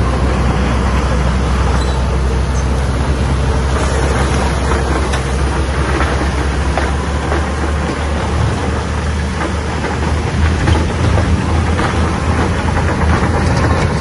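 Shantui crawler bulldozer's diesel engine running hard with a steady low drone, and scattered metallic clanks from the steel tracks and blade. The engine note shifts about eight seconds in.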